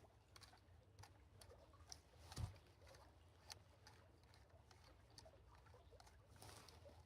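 Faint, irregular clicking and ticking from a Kodak Pony II's rewind knob being turned by hand as the 35 mm film winds back into its cassette, with a soft low bump about two and a half seconds in.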